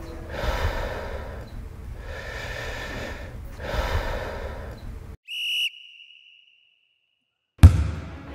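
Heavy breathing, about three long breaths in and out. Then a short, shrill whistle blast, a couple of seconds of silence, and a single sudden loud impact with a ringing tail near the end.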